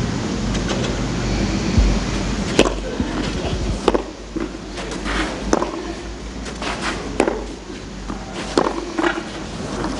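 Tennis ball struck by rackets in a serve and baseline rally on a clay court: about five sharp hits, roughly one every second and a half, over a steady background hiss of the outdoor stadium.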